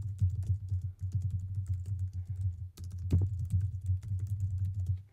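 Typing on a computer keyboard: a fast, continuous run of keystrokes that stops just before the end.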